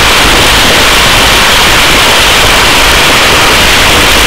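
Hovering helicopter heard at its open cabin door, a loud, steady rushing noise with no distinct tones or changes.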